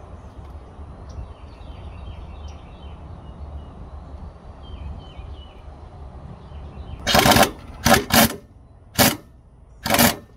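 Air impact wrench run in five short bursts, starting about seven seconds in, the first burst the longest. It is driving the forcing screw of a C-frame ball joint press to push a new lower ball joint into the control arm. Before the bursts there is only a steady low rumble.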